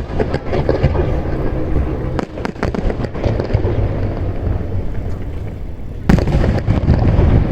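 Aerial fireworks shells bursting: several sharp bangs and crackles over a continuous low rumble, with the loudest boom about six seconds in.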